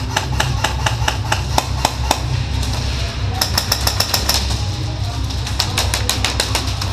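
Airsoft guns firing: sharp clicking shots, some single and some in quick runs, thickest about halfway through.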